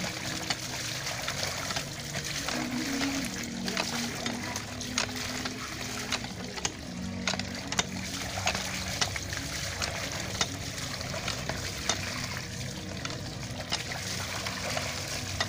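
Clothes being hand-washed in a basin of soapy water: steady splashing and sloshing as the garments are scrubbed and wrung, with water running from a pipe into the basin and many small sharp splashes.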